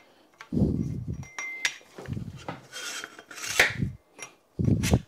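Metal parts of a Park Tool PCS-10.3 bicycle repair stand being handled and slid together: dull knocks with a few sharp metallic clinks, the loudest a little past halfway.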